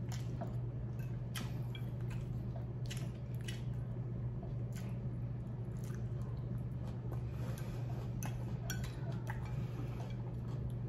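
Close-up eating sounds: chewing mouthfuls of Caesar salad, with wet mouth sounds and a fork clicking and scraping against a plate at irregular moments, over a steady low hum.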